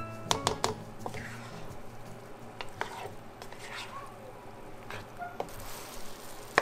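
Diced apples cooking in a buttery sugar syrup in a nonstick frying pan give a soft sizzle, while a spatula stirs and scrapes through them. Light clicks of the spatula against the pan come several times just after the start and a few more later.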